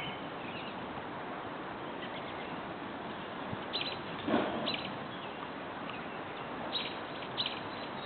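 Short, high bird chirps, about four of them in the second half, over a steady background hiss, with one brief louder sound about four seconds in.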